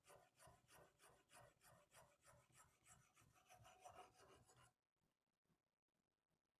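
Vanadis 4 Extra steel knife blade stroked back and forth on a 500-grit sharpening stone, faint rhythmic scraping at about three strokes a second, working up a burr along the edge; the strokes stop a little under five seconds in.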